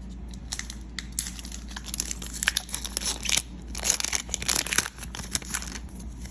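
Foil Pokémon booster pack wrapper being torn open and crinkled by hand: irregular crackling and rustling, busiest a little past halfway.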